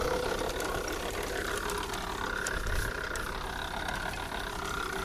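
Farmtrac tractor engine running steadily while pulling a potato digger, whose metal rod elevator chain rattles with many small clicks as it lifts and shakes out potatoes and soil.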